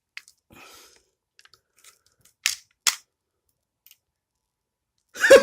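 Spring-powered airsoft pistol being cocked and fired: small plastic clicks, then two sharp clacks about half a second apart. The shot is weak; the spring barely moves the BB, which just drops out of the end of the barrel.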